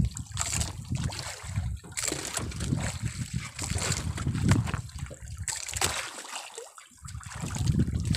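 Water splashing and trickling against a small boat, coming in irregular bursts, with a low rumble underneath.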